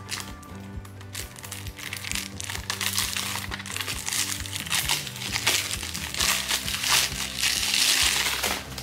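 Clear plastic shrink wrap crinkling and crumpling as it is peeled off a CD case and balled up in the hands. It grows louder and busier toward the end and stops suddenly just before the end.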